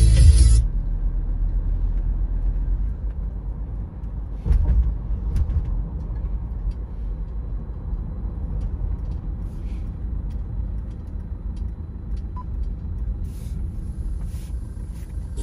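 Music cuts off half a second in, leaving the low rumble of engine and tyre noise inside a moving car's cabin. A few faint clicks come through, and one louder bump about four and a half seconds in.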